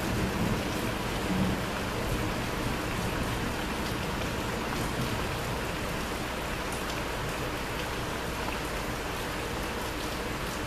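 Thunderstorm rain falling steadily, with a low rumble of thunder dying away in the first two seconds.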